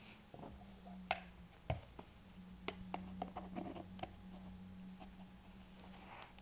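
Sharp plastic clicks and knocks from a vacuum cleaner hose and a plastic attachment tool being handled and fitted together, the two loudest about a second and just under two seconds in, over a faint steady low hum.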